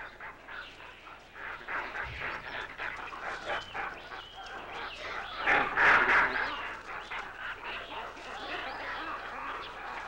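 A troop of rhesus macaques giving shrill calls during a fight between groups, many short calls overlapping, loudest around six seconds in.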